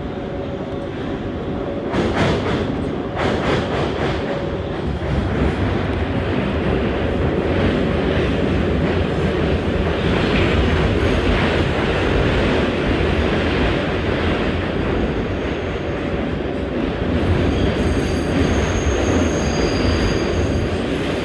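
R188 subway car running at speed through a tunnel, heard from inside the car: a steady rumble of wheels on rail. Clacks over rail joints come a couple of seconds in, and a thin high wheel squeal is heard near the end.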